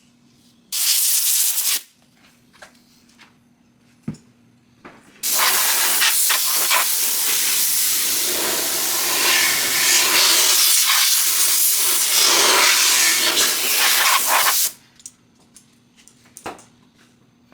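Water spraying onto a headlight lens to rinse off the sanding residue: a short spray about a second in, then a long steady spray from about five seconds in that cuts off suddenly near the end.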